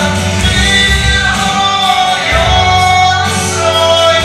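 A man singing a gospel song into a microphone over instrumental accompaniment, with long held notes.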